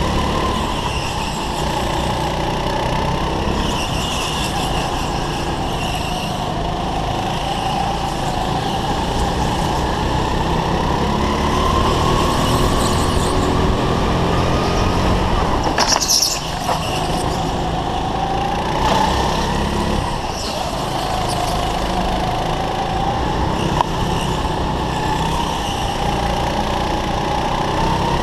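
Go-kart engine running hard through laps, its pitch climbing as it accelerates and dropping each time the throttle comes off for a corner. Near the middle there is a brief harsh burst with a short lift-off.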